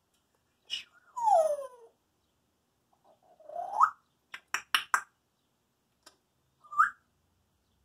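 African grey parrot whistling and clicking: a falling whistle about a second in, then a rising whistle, a quick run of sharp clicks, and a short rising chirp near the end.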